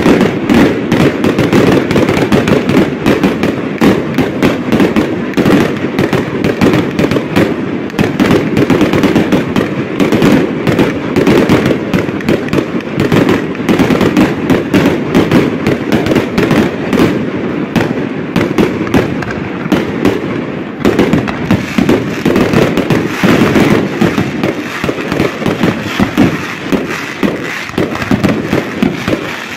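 Aerial fireworks display: a loud, rapid, unbroken barrage of shell bursts and crackle.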